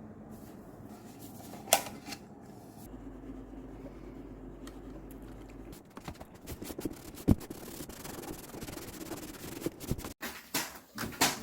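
Rubbing and rustling with scattered clicks and knocks, as of objects being handled and moved. There is a sharp click about two seconds in and another about seven seconds in, and the knocks come thicker near the end.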